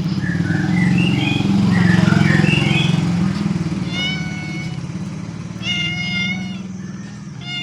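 A cat meowing, twice briefly, over the steady low pulsing of a motorcycle engine idling.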